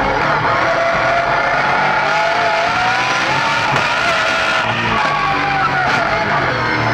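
BMW Z4 GT3's naturally aspirated 4.4-litre V8 (P65B44) heard from inside the cockpit while lapping, its revs rising and falling. Music plays in the background.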